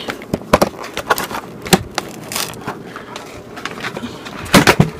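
Hard plastic packaging being pried open by hand: scattered clicks and scrapes, with a loud cluster of snaps and knocks near the end as it comes free.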